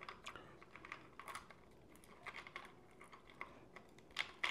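Faint, scattered small clicks and taps of eating and handling food up close, coming in irregular little clusters with a slightly louder run near the end.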